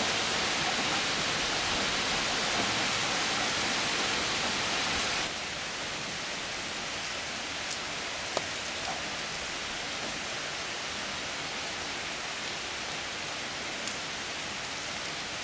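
Heavy rain pouring steadily, an even hiss that drops a little in level about five seconds in, with a couple of faint ticks.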